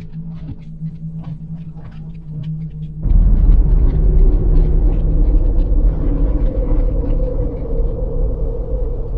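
A steady low hum with scattered faint clicks. About three seconds in, a loud, deep rumbling drone starts suddenly and holds, with a steady droning tone over it.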